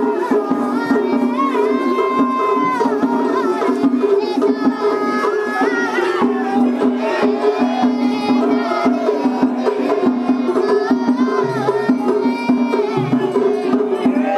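Traditional Japanese festival music: drums beating in quick, dense strokes under a steady drone and a wavering high melody, mixed with crowd voices.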